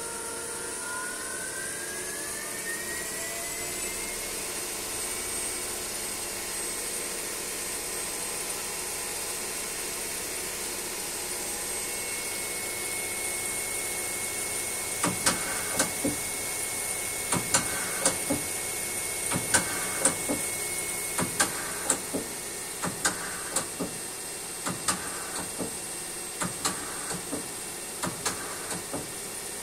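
Hurco TM 8i CNC lathe running with a steady machine hum. The spindle's whine dips and then rises in pitch over the first few seconds. From about halfway on, an irregular series of sharp clicks, about two a second, comes from the tool turret indexing.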